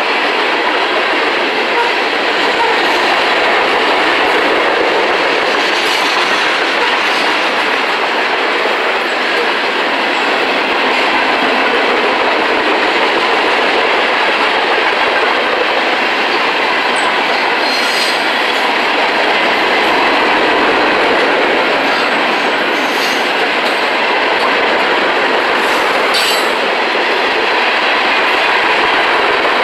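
Freight train cars, covered hoppers and tank cars, rolling past close by: a steady loud noise of steel wheels running on the rails. A few brief high-pitched squeals or clicks come through about two-thirds of the way in and again near the end.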